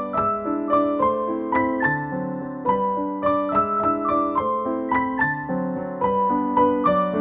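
Background piano music: a gentle melody of single notes over held chords, with a new note about every half second.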